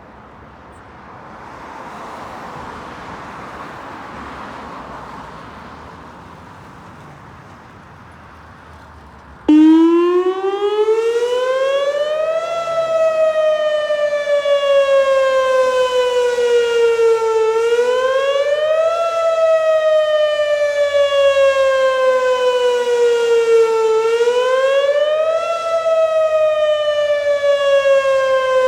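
Outdoor tornado warning siren sounding a test. After about nine seconds of faint background noise it starts abruptly and loudly, climbs quickly in pitch, then slowly falls and climbs again, a rise-and-fall wail that repeats about every six seconds.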